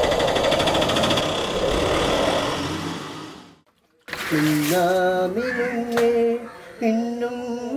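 An auto-rickshaw's small engine rattles and fades out over about three and a half seconds. After a brief silence, a slow melody of held notes that step up and down begins.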